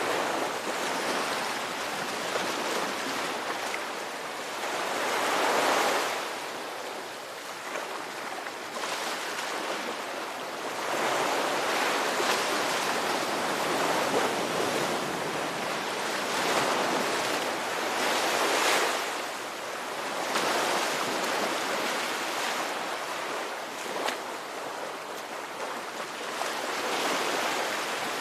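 Ocean waves breaking and washing on a shore: a continuous rushing surf that swells and eases every few seconds.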